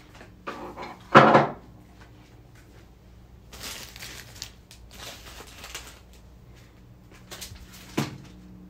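Handling noises: a loud bump about a second in, rustling and scraping in the middle, and another knock near the end.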